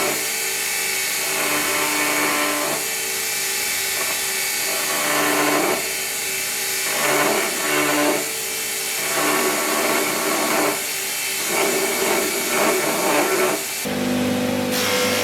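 A power tool running steadily while working metal for a sword guard, its sound growing rougher in stretches of a second or so as it bears on the work and easing off between them. The sound changes abruptly near the end.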